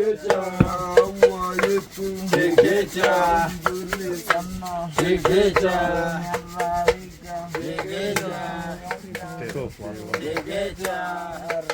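Pestle repeatedly pounding roasted coffee beans in a mortar, a string of dull knocks, with people singing over it.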